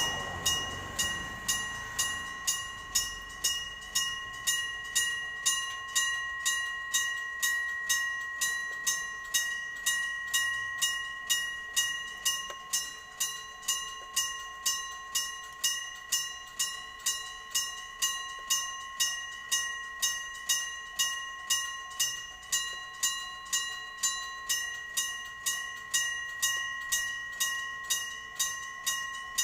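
Electric bell of a Japanese railway level crossing ringing its warning: a steady, even series of metallic strikes, a little under two a second, each leaving a bright ringing tone.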